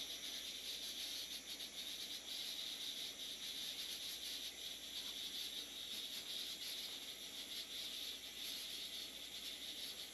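Hydronic boiler system's automatic air vent hissing steadily with a fine sputter as trapped air bleeds out of the freshly filled, pressurised water lines.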